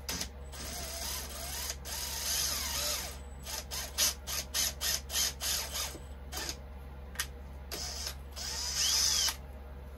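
Power drill boring a pin hole through a wheel hex held in a drilling template. It runs in stops and starts: a long run, then a string of short trigger pulses about three a second, then a final short run.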